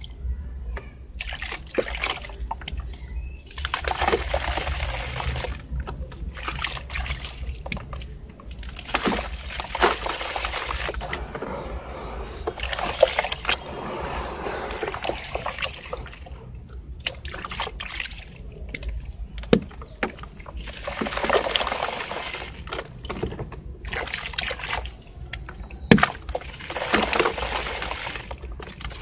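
Hands sloshing through a basin of water and crumbling sand-cement balls into it, with splashing and gritty water sounds in irregular bursts and short pauses between, and a few sharp clicks.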